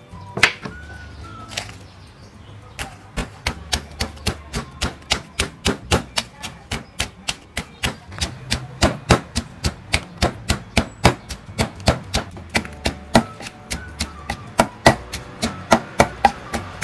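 Wooden pestle pounding chillies and garlic in a wooden mortar: steady sharp strikes, about three to four a second. A few knife chops on a wooden cutting board come first, in the opening couple of seconds.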